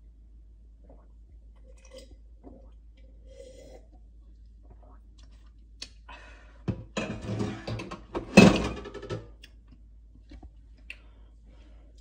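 A person gulping down a drink in one go: a close run of swallows lasting about two and a half seconds, loudest near its end.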